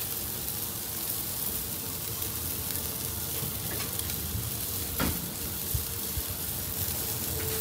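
Whole tilapia in wire grill baskets sizzling on a grill, a steady hiss, with a single sharp tap about five seconds in.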